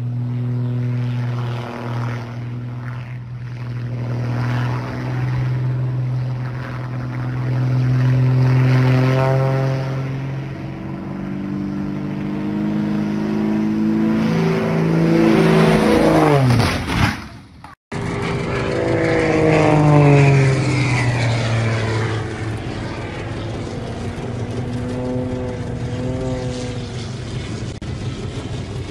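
Zivko Edge 540T aerobatic plane flying overhead: its six-cylinder piston engine and propeller drone steadily, the pitch climbing and falling with the manoeuvres. About 17 seconds in the pitch drops steeply as it passes, and the sound cuts out for a moment before the engine note rises again.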